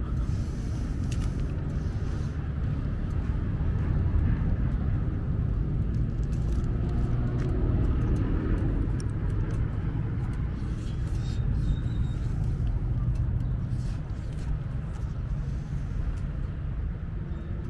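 Cruiser motorcycle engine idling steadily, keeping its chrome exhaust hot enough to cook bacon laid on it.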